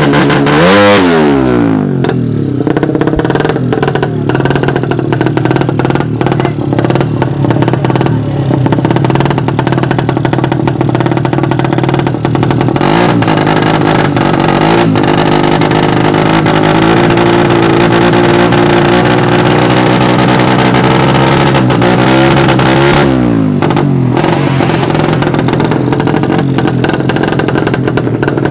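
Suzuki Satria FU drag bikes' single-cylinder four-stroke engines running loudly. A sharp rev rises and falls about a second in and again near the end.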